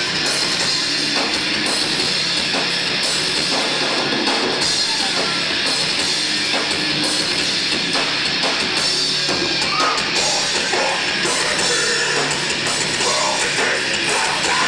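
Death metal band playing live: heavily distorted electric guitars over a pounding drum kit, a loud, dense, unbroken wall of sound.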